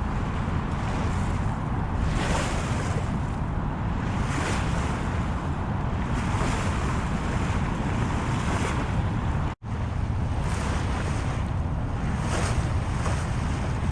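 Wind buffeting the microphone over the rush of water along a sailboat's hull as it motors fast through strong current, swelling every couple of seconds. The sound cuts out for an instant about two-thirds of the way through.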